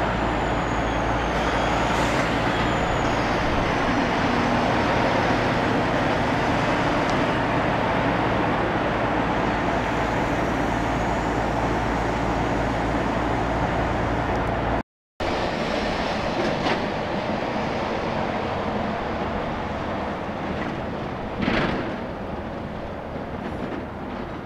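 Semi-trucks driving past on the road: steady engine hum and tyre noise, loudest in the first half, then quieter traffic after a brief dropout about halfway through.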